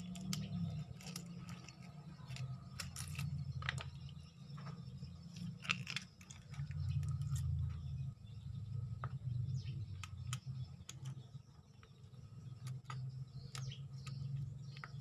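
Knife scraping and cutting a whole fish on a board: a scattered run of short sharp clicks and scrapes, over a steady low hum.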